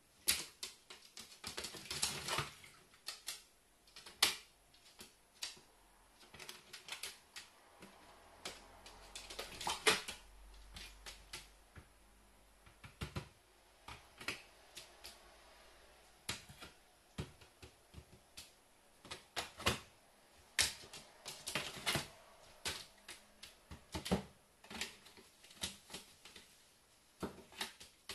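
Carrion crow's beak and claws tapping and scratching on a shallow plastic tray, irregular sharp clicks, with a couple of denser bursts of rustling as it makes bathing motions in the nearly empty, wet tray.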